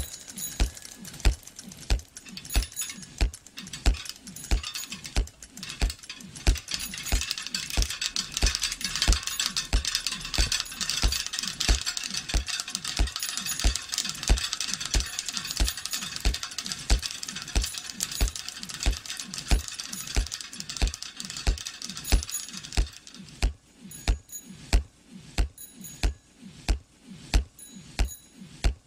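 A rhythmic percussive track: a low, pitch-dropping thud about three times every two seconds, under a dense clatter of fast high clicks that thins out near the end.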